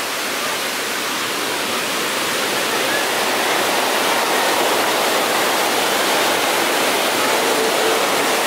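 Rushing water of a rocky mountain stream with small waterfalls, a steady roar that grows slightly louder.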